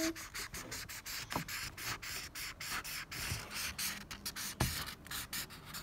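Felt-tip marker scribbling back and forth on paper in quick strokes, about five a second, colouring in an area, with a couple of louder taps of the marker or hand on the page.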